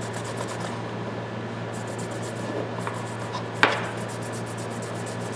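Cloth rubbing over steel needle-nose pliers, wiping them down to check for light surface rust, with one sharp click about three and a half seconds in.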